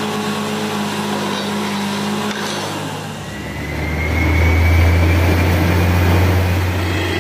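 Truck-mounted borewell drilling rig running steadily while drilling. About three seconds in its low machine note changes and grows louder, with a faint whine slowly rising in pitch.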